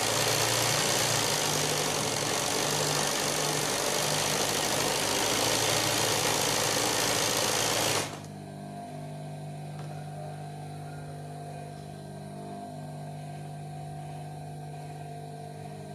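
Old industrial sewing machine stitching fast and steadily for about eight seconds, then stopping abruptly, leaving only a quieter steady motor hum.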